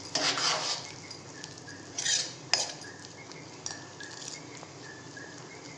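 Metal ladle stirring a boiling vegetable curry in a large metal pot, scraping and clinking against the pot's side: a scrape right at the start, then a couple of sharp clinks about two seconds in and a few light taps, over a steady low hiss.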